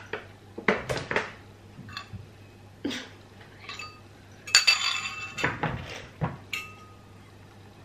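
A metal utensil clinking and scraping against a small ceramic bowl: scattered knocks, a busy run of scraping clinks about halfway through, and a few last clinks that ring briefly.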